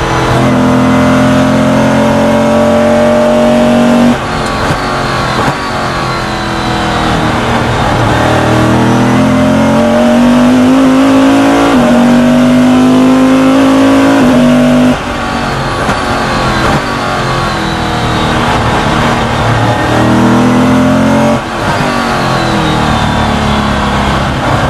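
Superlite Eagle Coupe race car engine heard from on board at full throttle. Its pitch climbs and drops sharply at each upshift, about four and twelve seconds in. It falls away under braking from about fifteen seconds in, then climbs again near the end.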